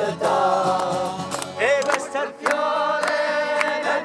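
A group of voices singing a song together, holding long notes, to an acoustic guitar.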